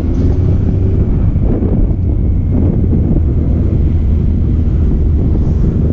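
Heavy wind buffeting on a helmet-mounted camera's microphone while riding a motorcycle, with the bike's engine running underneath as a steady low rumble.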